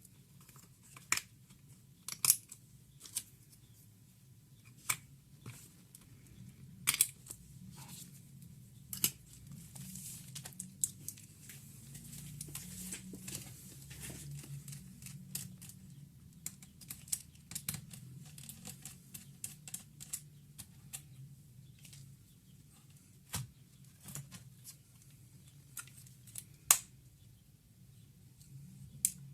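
Irregular sharp clicks and taps of small hard plastic and metal laptop parts being handled and worked on, with a stretch of light scraping and rustling in the middle, over a faint low hum.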